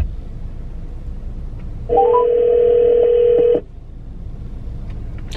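Electronic tone from a drive-thru order speaker box. About two seconds in, a steady mid-pitched tone sounds, with two quick rising beeps at its start. It holds for about a second and a half, then cuts off suddenly.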